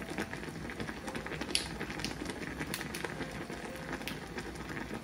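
Shabu-shabu broth bubbling steadily in the hot pot, with many small pops and one sharper click about a second and a half in.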